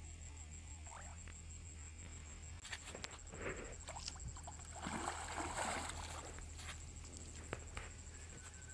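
Hooked fish thrashing and splashing in shallow water at the bank as it is played on the line, in short bursts about three seconds in and again around five to six seconds in.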